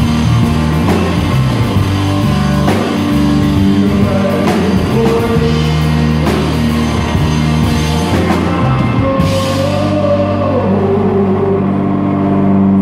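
Live blues-rock from an electric guitar and a drum kit. About nine seconds in the cymbals stop and held guitar notes ring on with slow bends, as the song winds down.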